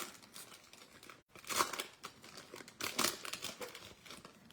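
Trading cards being handled and flipped through: papery rustling and crinkling, with louder swishes about one and a half and three seconds in.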